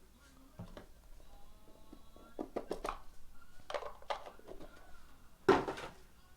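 Trading cards and their packaging being handled at a table: a run of rustles and light taps, with one louder thunk about five and a half seconds in.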